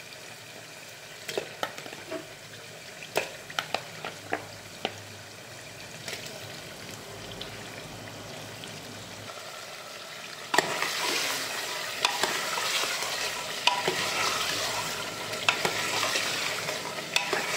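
Onion purée and whole spices frying in hot oil in a pressure cooker, with a few scattered clicks. About ten seconds in, the sizzling suddenly gets much louder as the boiled mutton trotters (paya) go into the oil and a spoon stirs them.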